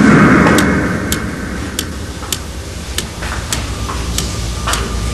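Soundtrack of sharp, evenly spaced ticks, about one and a half a second, over a low steady drone. A rushing swell opens it and fades within the first second.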